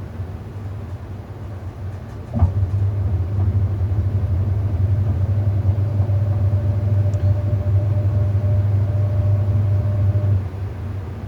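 Hoover 800RL top-loading washing machine running with a low hum. About two seconds in there is a click and its motor comes on louder with a faint steady whine, running until near the end, when it drops back.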